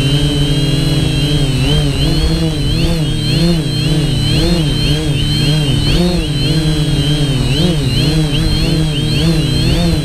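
Cinetank Mk2-L quadcopter's brushless motors and propellers whining, their pitch steady at first and then swinging rapidly up and down about twice a second as the craft wobbles while descending through its own dirty air, an oscillation the owner thinks might need tuning.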